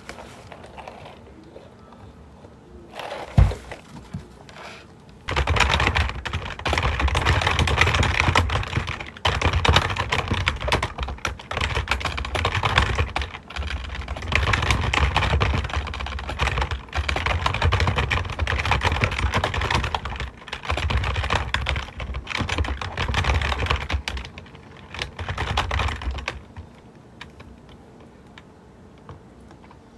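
Fast typing on a computer keyboard: a dense, steady stream of key clicks with short pauses, starting about five seconds in and stopping a few seconds before the end. A single knock comes shortly before the typing begins.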